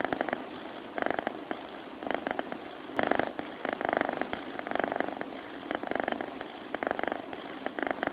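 Sleeping cat purring close to the microphone, a finely pulsing rumble that swells and fades about once a second.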